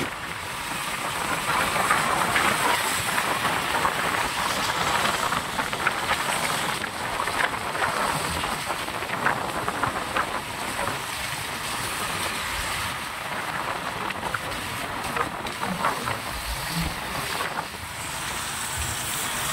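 Steady hiss of tyres running through standing water on a rain-soaked road, with splashing spray, heard from a moving vehicle in traffic.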